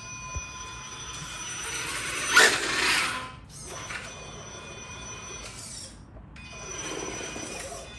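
Axial Ryft RC truck's electric motor and freshly rebuilt drivetrain whining as it drives. The whine has a few steady tones, swells loudest about two and a half seconds in, and cuts out briefly twice as the throttle is let off. The rear differential runs without its earlier grinding, now shimmed at the bearing.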